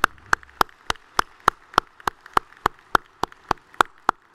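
One person's hands clapping close to a podium microphone, loud and steady at about three and a half claps a second, over fainter applause from the audience.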